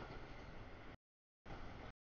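Faint, steady rolling noise of an intermodal freight train's trailer and container cars passing over the rails, heard through a low-quality camera microphone. The audio cuts out to dead silence about a second in and again just before the end.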